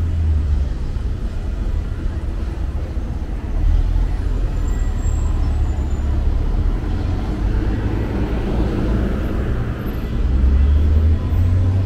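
City street ambience: steady road traffic noise with a deep low rumble, swelling briefly past the middle.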